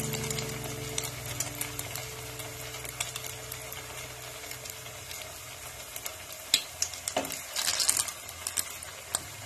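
A stuffed Moghlai paratha deep-frying in a wok of hot oil: a steady sizzle with many small crackles. About seven to eight seconds in come a few louder clicks and splashes as a slotted metal spatula works the paratha in the oil.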